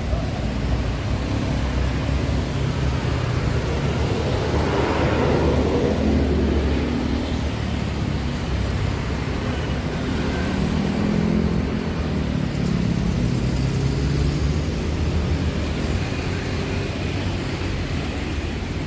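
Road traffic: a steady rumble of passing vehicles, with one vehicle passing close about five seconds in and another engine's hum a few seconds later.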